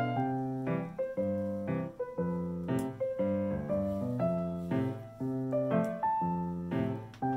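Background piano music: a melody of single notes over repeating low chords, moving at a steady pace.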